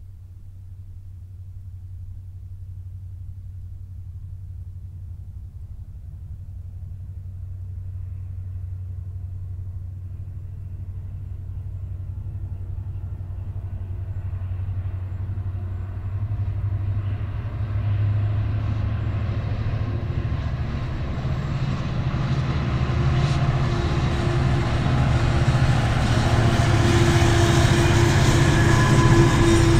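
Long double-stacked container freight train approaching behind its diesel locomotive: a low rumble and engine drone that grows steadily louder, with wheel-on-rail noise rising over the second half as the container wagons come by.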